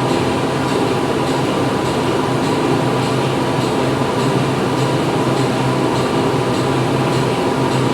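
Factory machinery running steadily: a loud, even mechanical hum with a low drone and a higher steady tone, and faint light ticking repeating about twice a second.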